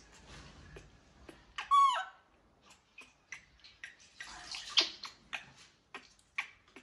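Baby macaque's high squeal that falls in pitch, about two seconds in, among shorter squeaks and scattered clicks; a short rushing hiss around four to five seconds in.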